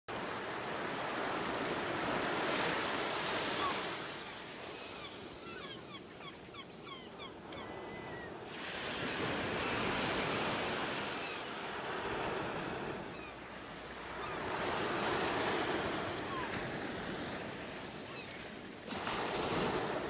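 Ocean waves washing in slow surges, the sound swelling and ebbing every few seconds, with a few faint high chirps in a lull about five to eight seconds in.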